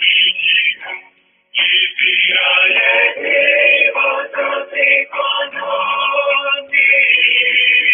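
Music with singing, sung in phrases, with a short break about a second and a half in.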